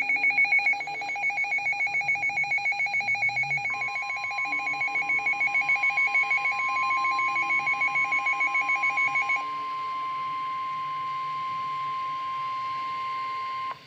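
Emergency alert tones. A rapidly pulsing, ringing electronic alarm beeps for about nine seconds. About four seconds in, a steady single tone near 1 kHz joins it, the weather-radio warning alarm tone. That tone holds alone for a few seconds, then cuts off abruptly just before the end.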